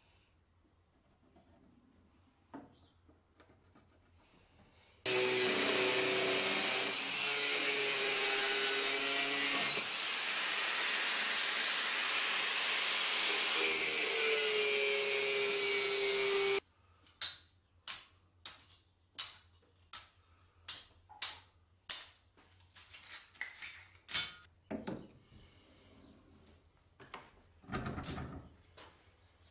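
Angle grinder cutting steel strips, starting abruptly about five seconds in and running steadily for about eleven seconds before cutting off. After it come a series of about eight sharp metal knocks, roughly two a second, then a few scattered knocks.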